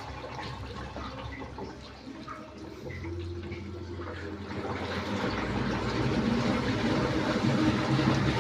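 Water running into the tub of an automatic washing machine as it fills during a test run, with a low machine hum coming in about three seconds in and the sound growing louder in the second half.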